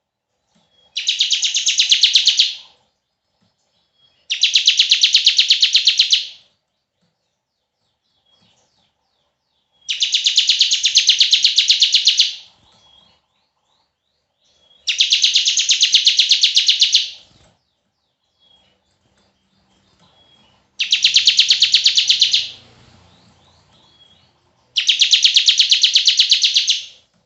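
Ciblek (bar-winged prinia) giving its long 'bren' song: six fast, buzzing trills of about two seconds each, separated by short pauses.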